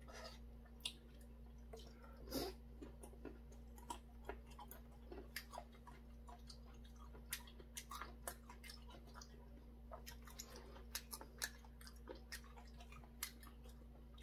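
A man chewing food: faint, scattered small clicks and smacks of the mouth, over a low steady hum.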